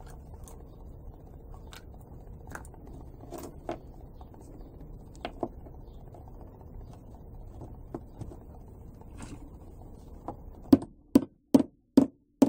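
Light clicks and rattles of small parts being handled on a workbench, then near the end four quick, sharp hammer taps, about two or three a second, each with a short ringing tone, driving a bearing into a tight-fitting hole in a plexiglass gearbox plate.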